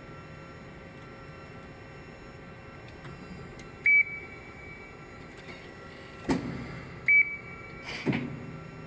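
Amada RG-50 CNC press brake running with a steady hum, as its control gives two short high beeps about three seconds apart, and two sharp clunks from the machine, one between the beeps and one near the end.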